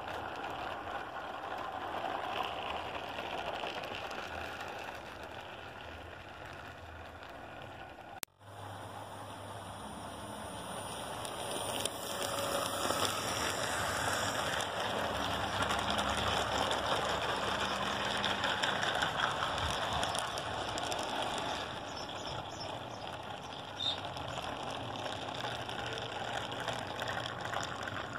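HO-scale model freight train running on garden track: a steady rattle of boxcar wheels rolling over the rails. The sound cuts out suddenly for a moment about eight seconds in, then comes back and grows louder from about twelve seconds.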